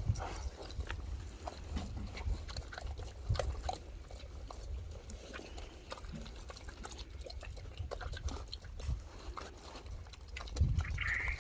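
Pigs eating vegetables and fruit, with irregular crunching and smacking chews.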